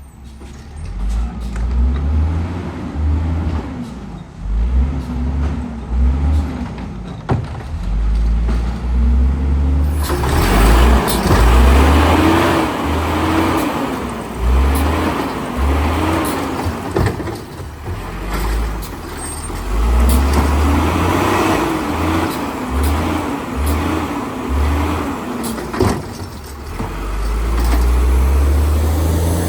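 Autocar WX refuse truck's engine revving up and falling back again and again, with a heavy low rumble and occasional sharp knocks.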